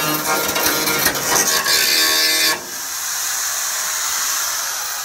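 Music with steady pitched notes and a strummed texture cuts off abruptly about halfway through. It leaves the steady high hiss of an oxy-acetylene welding torch flame.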